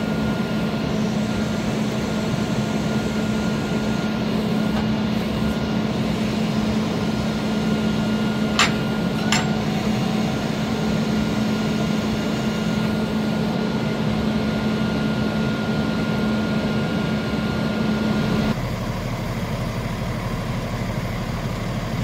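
Cummins ISL9 diesel of a Freightliner 108SD truck idling steadily, with a steady whine over it. Two sharp clicks a little under a second apart about nine seconds in, and the whine stops abruptly about three-quarters of the way through, leaving the idle a little quieter.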